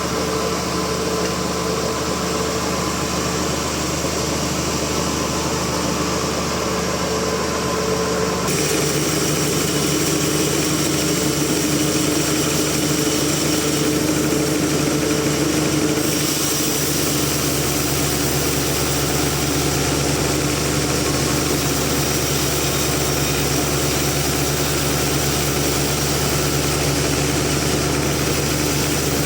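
Sawmill machine running steadily with a low engine drone. The tone shifts suddenly twice along the way.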